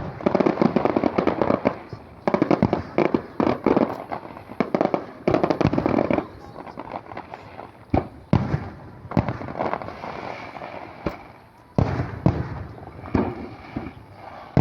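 Aerial fireworks display: dense volleys of rapid bangs and crackling through the first six seconds, then single shell bursts booming out about a second apart.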